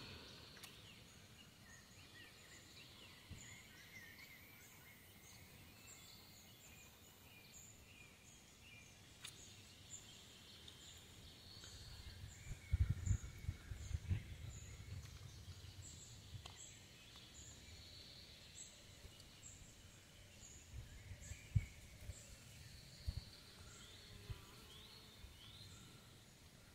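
Faint outdoor ambience at a pond: birds calling, with a high, thin chirp repeating about twice a second. Low rumbling thumps come in about halfway through and again later.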